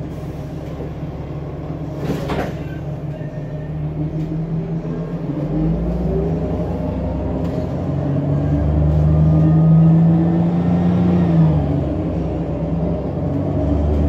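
A John Deere 8.1-litre CNG engine in a transit bus, heard from inside the cabin while the bus is under way. A brief noise comes about two seconds in. From about five seconds in the engine note rises as the bus accelerates, is loudest around ten seconds, then drops sharply near the twelfth second.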